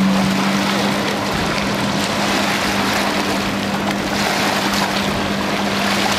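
Motorboat engine running with a steady low hum, over a constant wash of wind and water noise.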